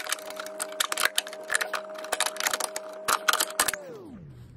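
Rapid, irregular clicking and tapping of hard parts being handled around the clutch master cylinder and its fittings, over a steady hum that glides down in pitch and fades about four seconds in.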